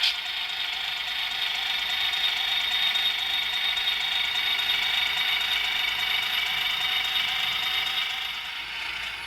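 HO scale model train running along the layout track, a steady mechanical rattle of small wheels and gearing on the rails that grows quieter near the end.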